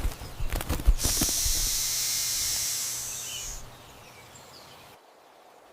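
Snake hissing: one steady, high hiss lasting about two and a half seconds that fades away, after a few sharp knocks and rustles.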